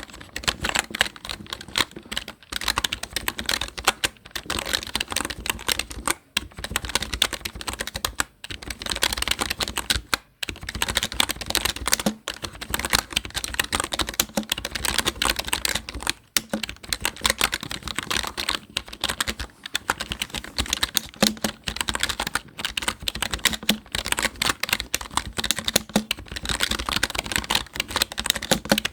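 Computer keyboard typing: a fast, continuous run of key clicks, broken by short pauses every couple of seconds.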